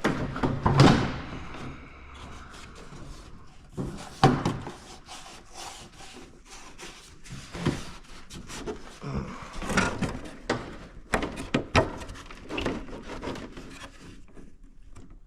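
A tractor cab roof being set down and shifted into place on the cab: irregular knocks, thuds and scraping as it is pushed and lined up. The loudest thumps come about a second in and around four and ten seconds, with a quick run of sharper clicks a little later.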